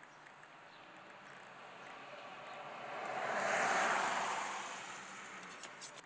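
A vehicle passing by: its tyre and engine noise swells, peaks about halfway through, and fades away. A couple of sharp clicks come near the end.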